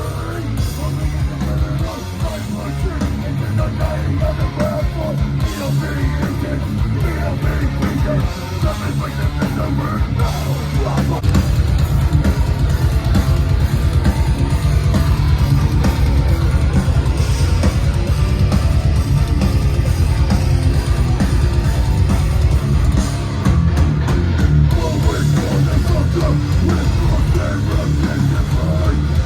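A heavy band playing live and loud: distorted electric guitars over bass and drums. It gets louder about eleven seconds in.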